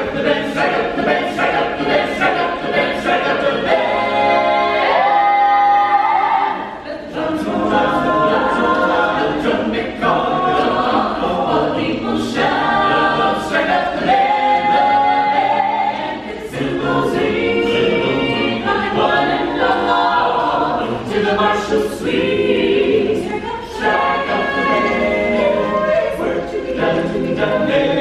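An a cappella choir singing in harmony without instruments, phrases of held notes with short breaks between them.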